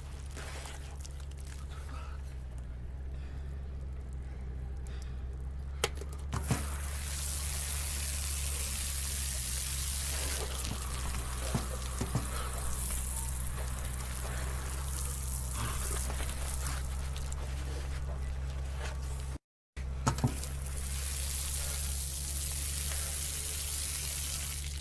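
Outdoor shower spray running on a man's head and the concrete, a steady hiss that grows stronger about six seconds in, with a few sharp knocks. A steady low hum runs underneath, and the sound cuts out for a moment about twenty seconds in.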